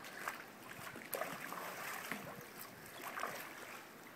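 Swimming-pool water lapping and sloshing, with light scattered splashes as a person wades waist-deep.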